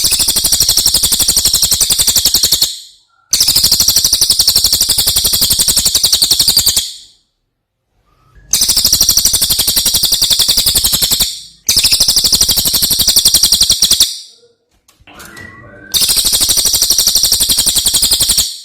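Cililin songbird singing a loud series of five long, rapid, high-pitched trills, each two to four seconds long, with short pauses between them.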